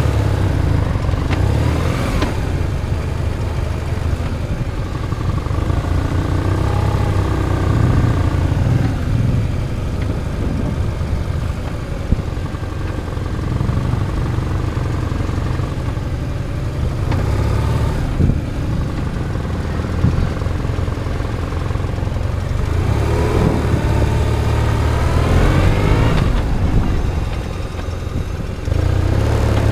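Motorcycle engine heard from a camera mounted on the bike, running at low speed with its pitch rising and falling with the throttle. Near the end it climbs steadily as the bike accelerates, drops briefly, then climbs again.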